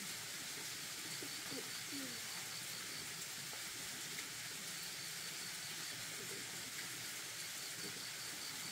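A steady hiss with a short high trill of quick pips that comes back about every three seconds, and a few faint short falling calls in the first couple of seconds.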